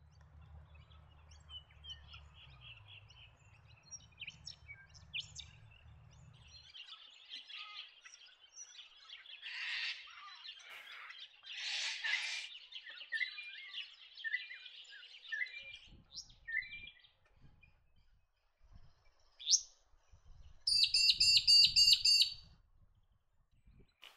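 Magpie-lark (peewee) calling, with assorted chirps and trills, then a loud, rapid run of repeated high call notes about three-quarters of the way in.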